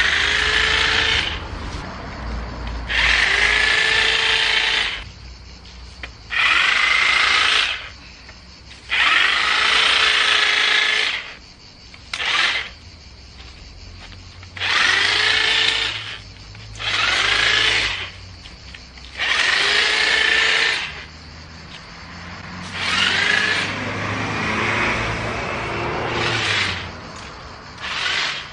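Small corded electric chainsaw run in about ten short bursts while cutting weeds and leafy branches. Each burst starts with a rising whine as the motor spins up, then runs steadily for a second or two before she lets off the trigger.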